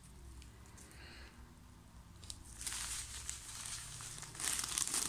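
Clear plastic zip-lock bag crinkling and rustling as dry ground breadcrumbs are squeezed and shaken out of it into a bowl. It starts a couple of seconds in and gets louder near the end.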